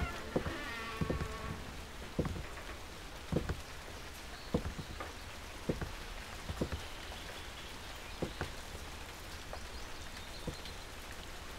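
Slow footsteps on wooden floorboards, about one step a second, over a steady soft hiss.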